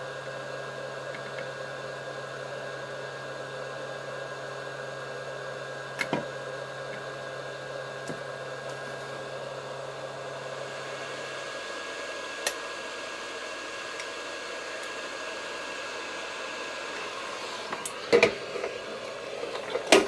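Steady rushing air of an SMD rework station's hot air gun, with a low hum that stops about halfway through. A few light clicks and knocks sound over it, the loudest ones near the end.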